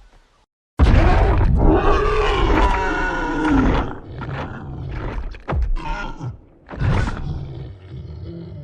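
Kong's roar, a film monster sound effect: one long, loud roar starting about a second in that rises and then falls in pitch, followed by several shorter calls.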